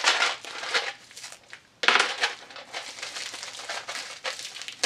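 Hands working at a small metal storage tin whose lid is stuck, giving several short, hissy bursts of handling noise.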